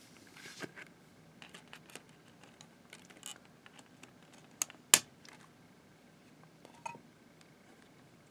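Small plastic clicks and taps as a DVD is pressed off the centre hub of a clear plastic multi-disc case and lifted out. Two sharper clicks come close together about five seconds in, with another near seven seconds.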